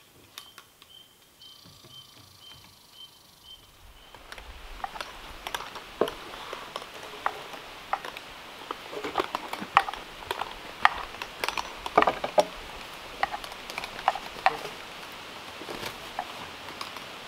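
Footsteps crunching through dry leaves and twigs on a forest floor, a dog's and a person's: irregular sharp crackles and snaps over a steady background hiss. At first only a faint high chirp repeats about twice a second.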